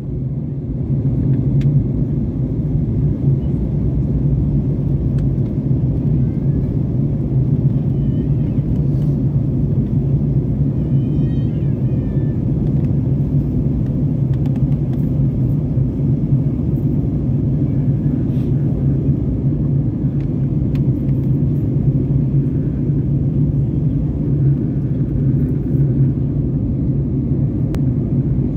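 Steady low rumble of jet airliner cabin noise, engines and airflow heard from a window seat during the descent.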